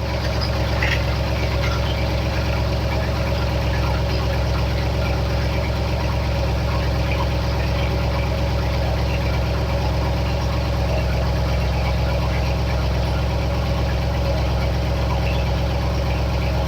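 1967 Ford F100's engine on Holley Sniper throttle-body fuel injection idling steadily just after a cold start. It is on its high cold-start idle, settling down as it warms.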